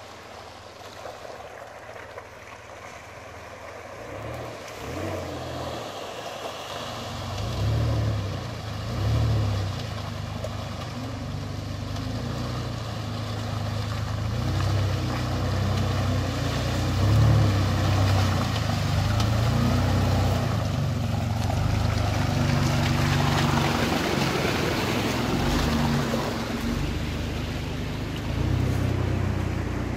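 A 4x4 off-road vehicle's engine working under load and revving up and down, growing louder over the first several seconds. A broad rushing noise swells about two-thirds of the way in.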